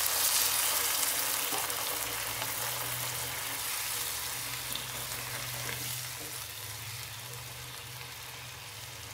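Water just added to a hot kadai of spiced vegetables sizzling, the hiss loudest at first and slowly dying down, while a wooden spatula stirs the vegetables through the liquid.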